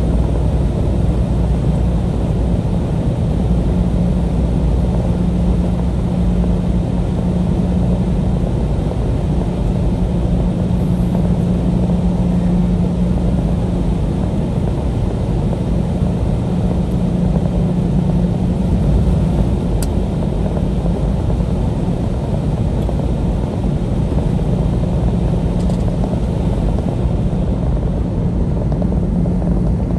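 Steady drone of a semi-truck's diesel engine and tyres heard from inside the cab while cruising on the highway, with a constant low hum and road rumble.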